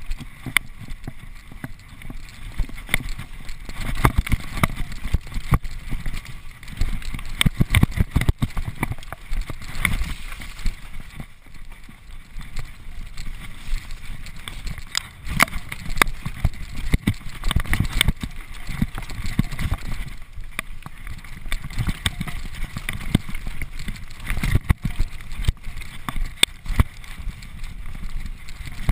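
Cross-country mountain bike riding fast down a dirt forest trail: tyres rumbling over the ground while the bike rattles with many irregular clicks and knocks over the bumps.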